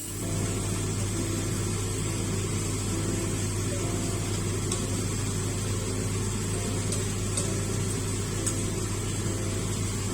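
A kitchen appliance's motor switches on and runs with a steady low hum.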